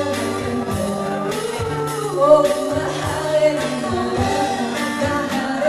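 Live band playing a pop song: a woman sings the lead melody over guitar and a drum kit keeping a steady beat.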